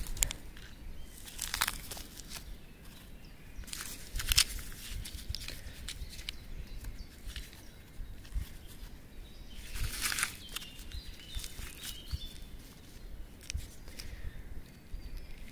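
Quiet, irregular rustling and handling noises with footsteps, from firecrackers being set out on the ground, with a few sharper crinkles about 2, 4 and 10 seconds in.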